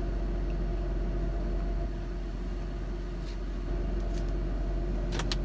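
Steady low hum of a car idling, heard from inside the cabin, with a few light clicks near the end.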